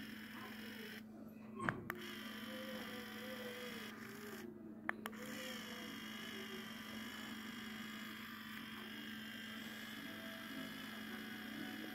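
Steady electric hum from a plugged-in 3D printing pen as it runs, with a few faint clicks.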